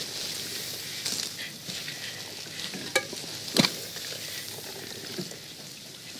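Soft rustling of leaves with a few short, sharp snips of small pruning shears cutting leaves from a greenhouse plant. The two loudest snips come about three seconds in.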